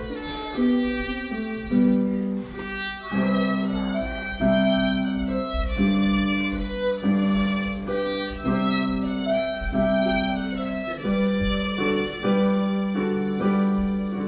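A violin plays a slow melody of held notes, accompanied by a digital piano.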